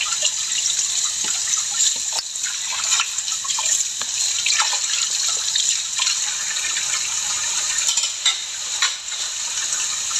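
Tap water running steadily into a sink during dishwashing, with small knocks and clatters now and then.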